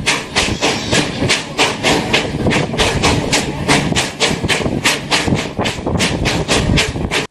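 The Fairy Queen steam locomotive's exhaust chuffing in quick, even beats, about five a second, each beat a sharp hiss of steam, as it pulls out of a station.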